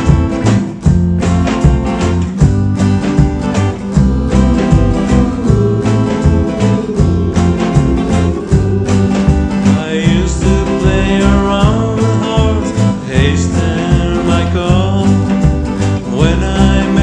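An oldies pop song with a steady beat and guitar. A voice sings over it from a few seconds in.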